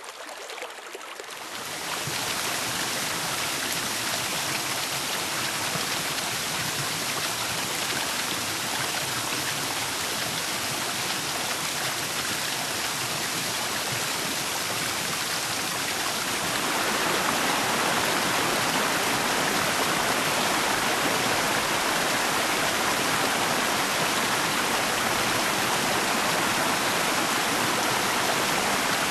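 Flowing water of a stream, a steady rush that steps up in loudness about a second in and again about halfway through.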